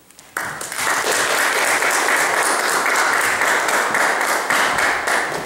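Audience applauding, starting suddenly about half a second in and then going on steadily.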